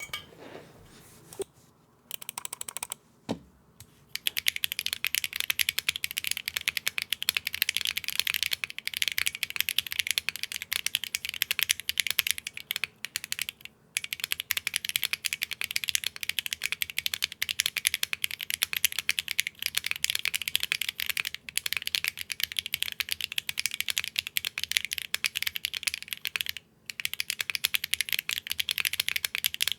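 Fast typing on a KBDfans Agar Mini 40% mechanical keyboard with Akko Cilantro switches and PBT keycaps: a few scattered keystrokes, then about four seconds in a dense, continuous run of key clicks with two brief pauses. The keystrokes sound a tiny bit glassy from the PBT keycaps.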